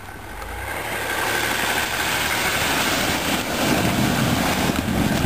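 Land Rover's engine working hard as it drives through deep snow, getting louder over the first few seconds and then holding steady, with a broad rushing noise over the engine hum.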